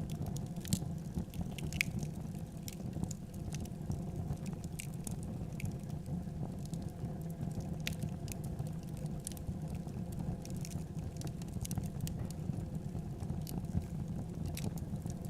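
Wood fire burning in a fireplace: a steady low rumble with irregular crackles and small pops throughout.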